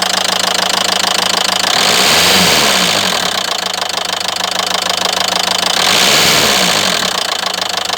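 Renault Mégane 3 diesel engine running with a rapid, regular knock, blipped up in revs and back down twice, about two seconds and six seconds in. The knock appeared suddenly at idle, and its cause is unknown to the owner.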